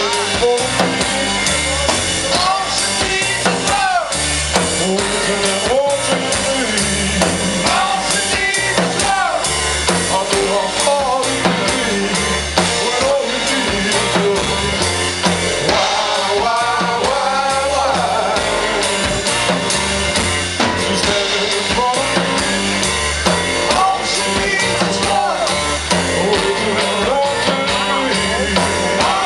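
Live rock band playing a song at a sound check, with drum kit, bass, electric guitar and a singer.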